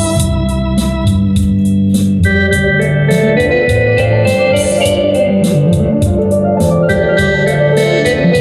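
Electronic organ playing held melody notes and chords over a moving bass line, with a steady beat of ticks about four a second from its rhythm accompaniment; the chords change about two seconds in and again near seven seconds.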